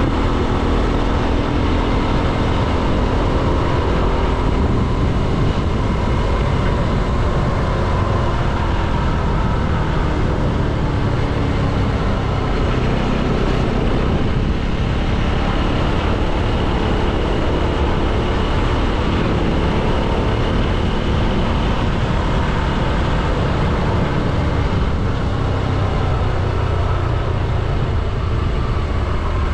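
Motorcycle engine running steadily while riding, its pitch drifting slowly up and down with speed, over continuous wind and road noise on the microphone.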